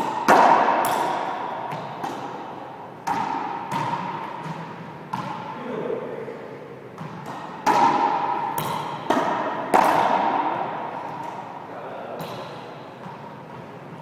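Racquetball rally: about ten sharp cracks of racquet on ball and ball against the walls and floor, each ringing out in the court's echo.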